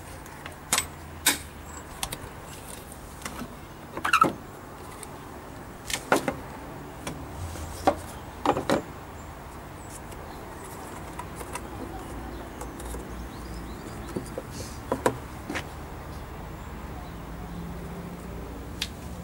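Sharp plastic clicks and snaps as the clips on a car's plastic air filter housing are unfastened and the lid is lifted, several in the first nine seconds. A few softer clicks follow later as the old pleated filter element is handled and pulled out.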